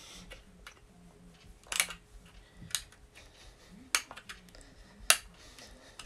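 Several sharp plastic clicks, a second or so apart, as the back cover of a wireless alarm/doorbell unit is pried off by hand.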